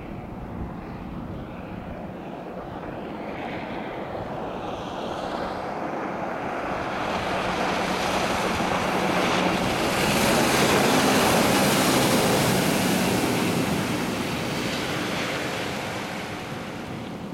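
Sirius Jet speedboat passing at speed: its engine drone and the rush of hull spray on the water grow louder as it approaches, are loudest about ten to thirteen seconds in, then fade as it runs away.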